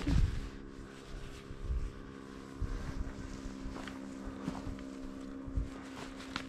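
A steady motor hum with wind buffeting the microphone, and a low thump right at the start.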